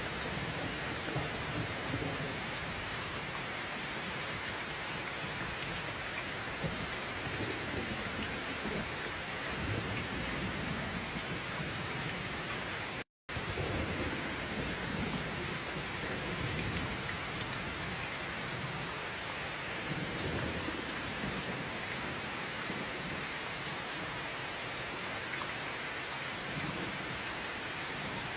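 Steady heavy rain with low rolling thunder rumbling in and out several times. The sound cuts out completely for a split second about halfway through.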